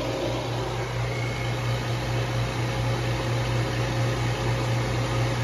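Refrigerant recovery machine running with a steady hum, pulling the remaining refrigerant out of a heat pump's indoor coil and line set as the pressures fall toward zero.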